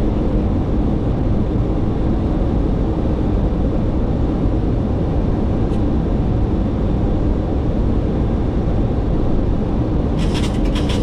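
Steady rushing airflow and engine noise inside a Boeing 737-800 cockpit on final approach, landing gear down and flaps at 30. A few short clicks come near the end.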